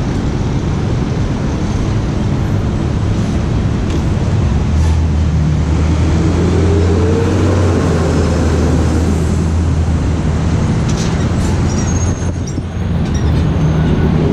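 City street traffic at a busy intersection: a steady mix of engines and tyre noise. In the middle a heavy vehicle's deep engine hum swells and fades as it passes, its tone rising and then falling.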